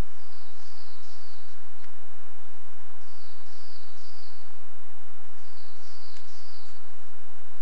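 Steady hiss and low electrical hum from a trail camera's recording, with a small songbird singing a short high phrase of several notes about every three seconds.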